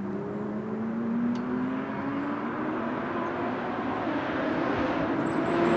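2018 Ford GT's twin-turbo V6 accelerating, its engine note rising steadily in pitch and getting louder as the car approaches.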